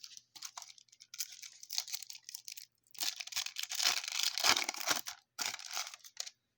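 A trading-card pack wrapper being torn open and crinkled: short rustles at first, then a longer, louder crinkling stretch from about three to five seconds in, and one more brief rustle near the end.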